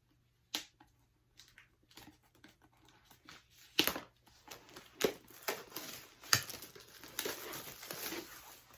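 Packaging of a Pokémon trading-card Elite Trainer Box being opened by hand: crinkling and tearing, with a few sharp snaps and a busier rustle in the second half.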